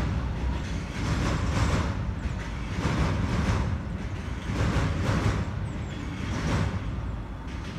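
Freight train's wagons rolling over a railway bridge: a low rumble with wheel clatter that swells every second or so, easing off near the end as the last wagons pass.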